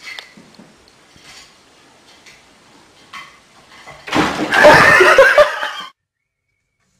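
Faint small knocks and rustling, then about four seconds in a loud, distorted burst of a person's voice that lasts under two seconds and cuts off suddenly.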